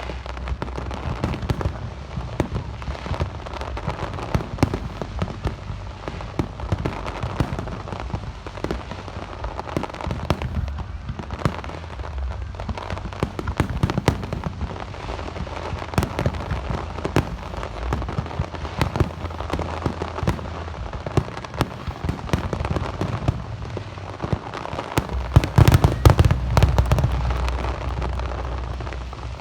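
Aerial fireworks display: a dense, irregular barrage of bangs and crackles over a low rumble, building to the heaviest cluster of booms about 25 seconds in, then fading away.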